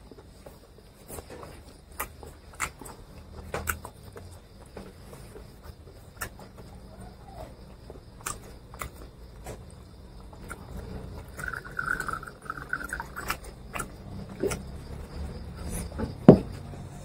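Scattered small clicks and light knocks of eating and of handling a glass whisky bottle and tumbler on a table, with one louder knock near the end.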